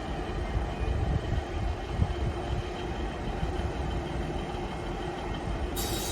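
Diesel multiple-unit passenger train running at the platform: a steady rumble with a low engine drone.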